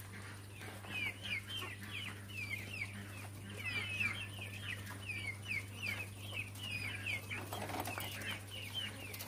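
A pen of quails chirping: many short, high, falling calls, several a second, overlapping without pause, over a steady low hum.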